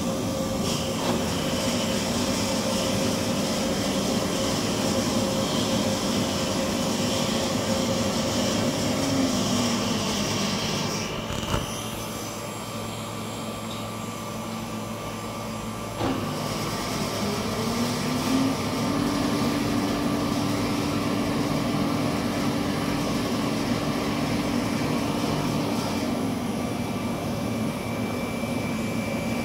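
Wiesheu bakery convection oven running its automatic cleaning programme: the fan motor whirs steadily while water and foam are flung around the baking chamber. About nine seconds in, the hum sinks in pitch and the sound drops quieter for several seconds, with a click. After another click the hum climbs back up to a steady pitch.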